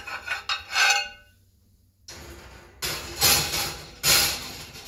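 Cast-iron tortilla press plates clinking and clattering as they are handled and set into an oven: a ringing metallic clink in the first second, then two louder clatters about three and four seconds in.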